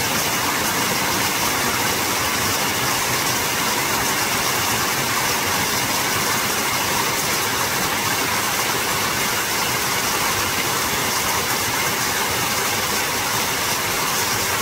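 Steady rush of flowing water from a mountain valley stream, an even hiss that holds at the same level throughout.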